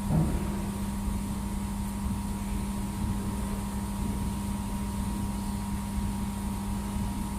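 Steady hum of a running handheld fiber laser welding machine, with a constant low tone over a low rumble. A brief thump comes just after the start.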